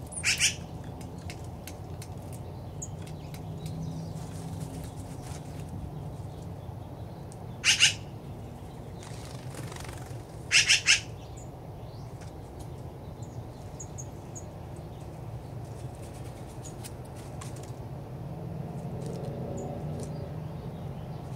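Corvid calls: a quick pair about half a second in, another pair near eight seconds, and a rapid run of three around eleven seconds, over a steady low rumble.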